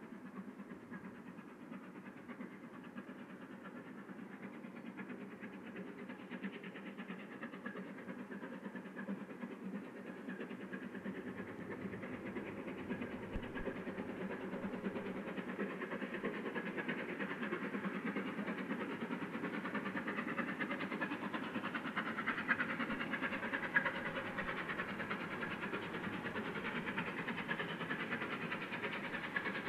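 Steam locomotive approaching under power, its exhaust chuffing growing steadily louder as it nears.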